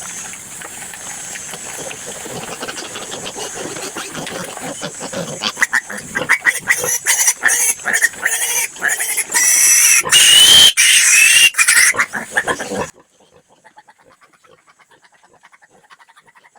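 Piglets squealing: noisy calls at first, then from about six seconds in loud, high-pitched screaming squeals in sharp repeated bursts that grow into near-continuous screaming. The sound cuts off suddenly about thirteen seconds in, leaving only faint sounds.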